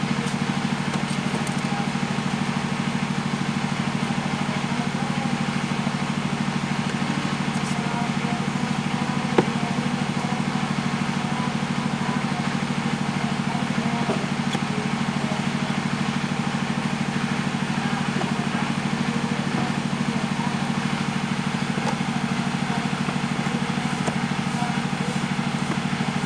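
Diesel generator set running steadily at constant speed, a low, even engine drone. A single sharp click about nine seconds in.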